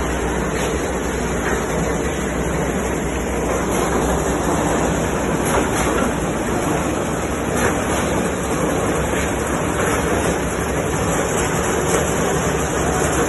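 Steady rumbling, rattling noise of construction machinery running without a break.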